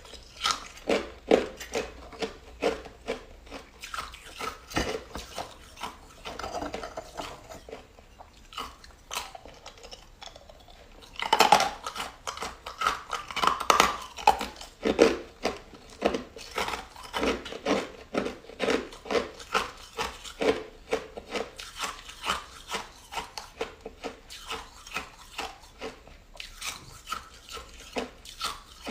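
A person biting and chewing ice close up, crunching over and over, with a quieter pause about a third of the way in.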